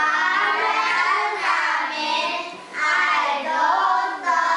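Children's voices singing together, high-pitched and continuous, with short breaks between phrases.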